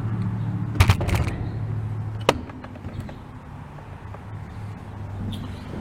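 Steady low hum, with a cluster of sharp metallic clicks about a second in and one more knock near two seconds, as the fork clamp bolts are worked loose with a hand tool. The hum fades after the last knock.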